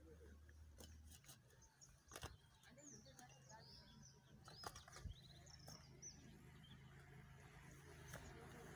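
Faint bird chirps, a few short high calls in the middle, over quiet outdoor ambience with a few light clicks.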